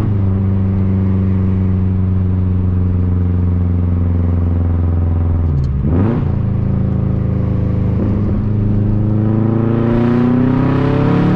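2004 Subaru WRX STI's turbocharged flat-four engine and loud aftermarket cat-back exhaust running under way. The drone holds steady and slowly sinks, changes pitch with a brief break about six seconds in, then climbs steadily as the car accelerates over the last few seconds.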